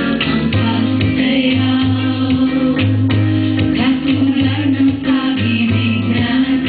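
Female vocal group singing together into microphones over a band backing, with held bass notes repeating underneath.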